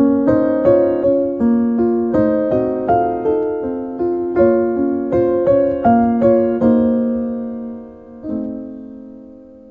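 Piano music: a slow melody over chords, notes struck about twice a second, then a chord left to ring and die away over the last few seconds.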